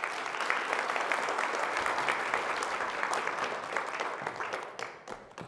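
Audience applauding, many hands clapping at once; the applause dies away near the end.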